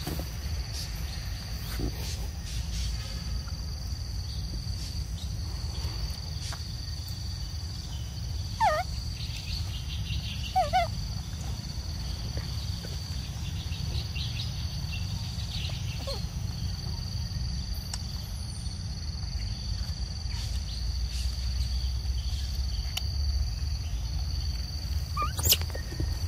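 Outdoor forest ambience: a steady high insect drone over a low rumble. Twice, about nine and eleven seconds in, there is a short, falling animal call.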